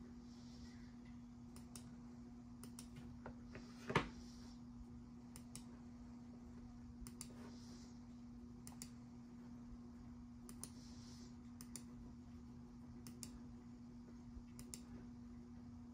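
Faint, irregular clicks at a laptop, each one placing a support point in 3D-printing slicer software, with one louder knock about four seconds in.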